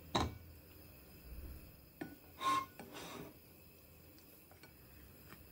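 A kitchen utensil scraping and knocking against cookware: a sharp knock at the start, then a click and two short scrapes about two to three seconds in.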